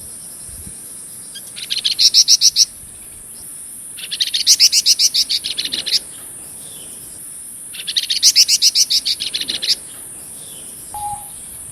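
Flamboyan songbird singing in rapid trilled bursts: three bouts of fast, evenly repeated high notes, each one to two seconds long, then a short lower note near the end.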